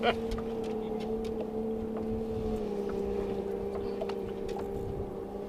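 Boat motor running steadily with an even hum, its pitch dropping slightly about halfway through.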